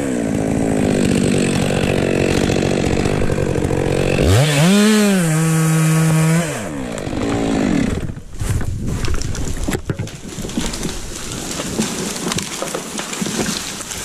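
Stihl MS 462 C two-stroke chainsaw running under load in the cut, then revving freely at high throttle for about two seconds before dropping back near the middle. After that come irregular cracks and crunching, loudest a couple of seconds after the saw drops.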